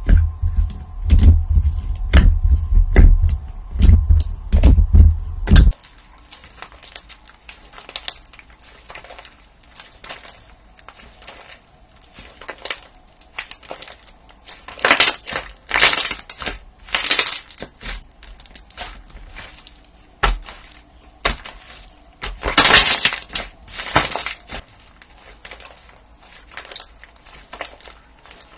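Deep thuds for about the first six seconds, cutting off suddenly, then crisp crackling and crunching, with louder bursts of crunches near the middle and again about two-thirds of the way through: a crunchy material such as slime or sand being pressed and crushed.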